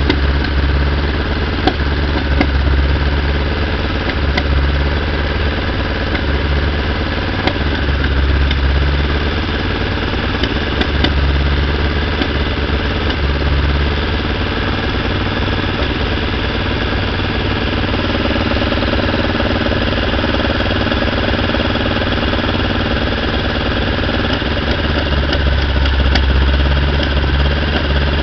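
VW Golf GTI four-cylinder engine on twin dual carburettors idling unevenly, its low rumble swelling and fading irregularly, as the idle mixture screws are turned. The idle is unsettled because the carburettors are neither synchronised nor is the mixture set yet.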